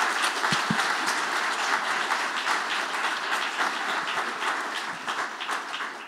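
Audience applauding, a dense patter of many hands clapping that dies down near the end.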